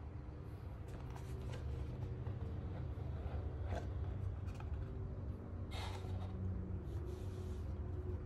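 A cardboard watch box being handled and its lid slid off: several short scrapes and rustles of card, the longest just past the middle, over a steady low hum.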